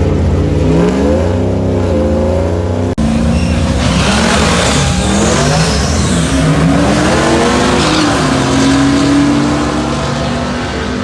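Race vehicles' engines accelerating hard down a drag strip, the engine pitch climbing, dropping back and climbing again several times, with a rushing hiss for a few seconds in the middle. The sound changes abruptly about three seconds in.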